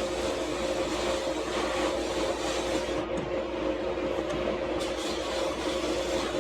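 Bead-blast cabinet in use: a compressed-air blast gun shooting silica beads at an aluminium part, a steady hiss with a constant hum underneath.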